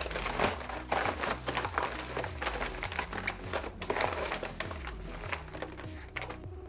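Plastic packaging crinkling and rustling as it is handled and opened, in irregular crackles that thin out near the end.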